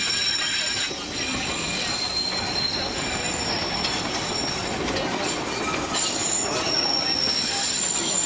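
Narrow-gauge tourist train heard from its open-air upper deck: a steady running noise of wheels on rail, with high-pitched wheel squeals coming and going as it takes the curves.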